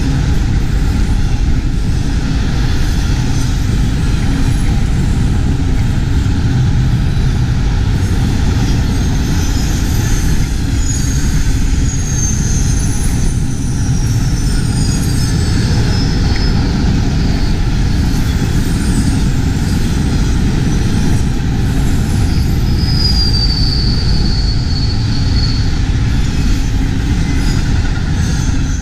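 Freight train of multilevel autorack cars rolling past close by: a steady noise of steel wheels on rail, with high thin wheel squeals that slide down in pitch twice, once near the middle and once toward the end.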